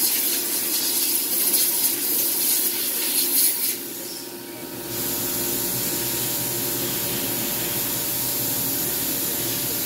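CNC mill spindle running while the chamfer tool cuts a heavy corner break along the edge of a 6061 aluminum plate under flood coolant spray, a steady hissing spray over a steady machine hum. The sound dips briefly about four seconds in, then runs evenly.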